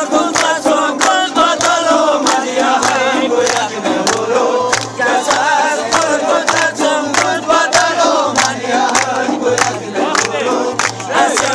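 Live Hunza folk music: a quick, steady drumbeat with men's voices singing and shouting over it.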